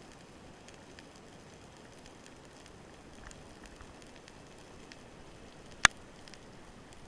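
Underwater ambience: a steady hiss dotted with faint scattered clicks and crackles. About six seconds in, one sharp, loud click.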